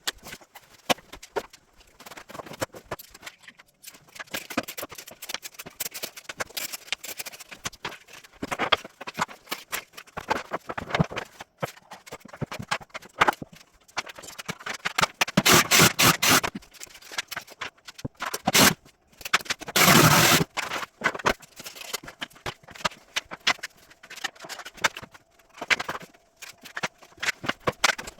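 Irregular scraping and rubbing of hand work on engineered wood flooring during floor repair, with a few louder bursts of scraping.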